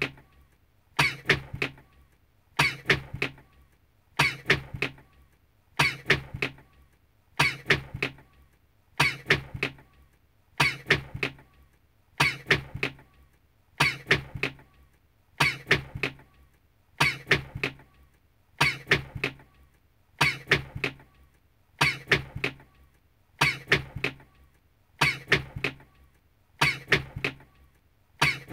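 A person's short sneeze looped over and over, repeating evenly about every one and a half seconds, each repeat a sneeze with a quick beat-like 'kung-ttak' after it.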